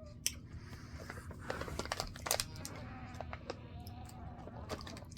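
Quiet eating noises: scattered small clicks, rustles and mouth sounds of people chewing candy.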